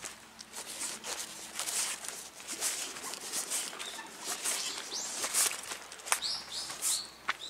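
Quick footsteps crunching and rustling through dry fallen bamboo leaves on a steep dirt trail, about two to three steps a second.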